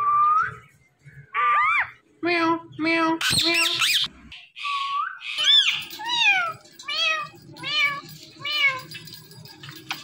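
Indian ringneck parrot mimicking a cat: a few short rising whistles and chattering calls, then a run of about five high, arching meows a little under a second apart.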